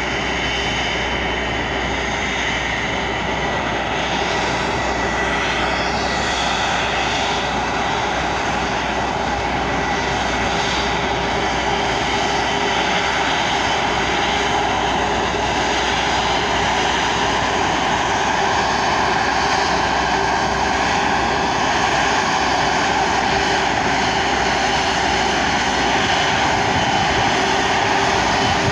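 Airbus A330-300 twin jet engines at taxi power: a steady rushing noise with a high whine over it, growing slightly louder as the airliner comes closer.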